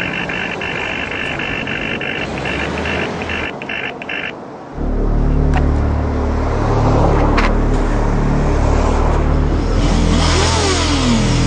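Street noise with a steady high-pitched tone that breaks into short pulses. About five seconds in, background music with a deep bass line starts suddenly and carries on.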